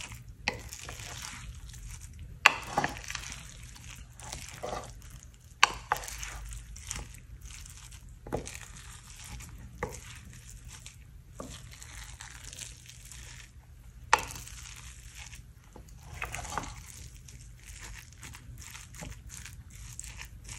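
Wooden slotted spatula stirring and turning cooked sticky rice in a glass baking dish: soft scraping with irregular sharp knocks of the spatula against the glass, a few of them loud.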